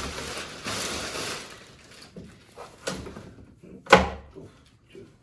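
Plastic wrapping rustling as a folded stroller is pulled from its cardboard box, then a single sharp knock about four seconds in as the stroller's frame bumps onto the box.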